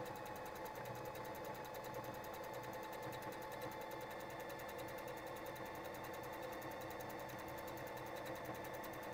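Bernette b05 Academy mechanical sewing machine running at a steady speed, sewing an overcast stretch stitch: a constant motor hum with a fast, even rhythm of needle strokes.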